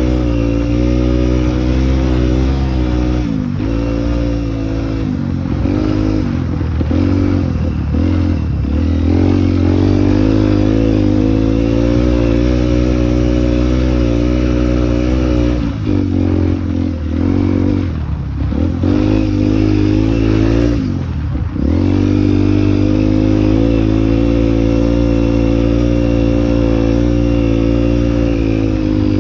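Single-cylinder dual-sport motorcycle engine running under way, holding a steady pitch for long stretches. Its note drops and climbs back several times in the first third, again a little past the middle, and once more at about three-quarters of the way through, where the throttle is eased and picked up again.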